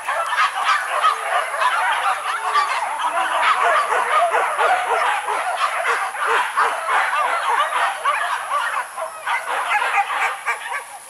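A pack of hunting dogs barking and yelping all at once, many short calls overlapping in a dense, continuous chorus.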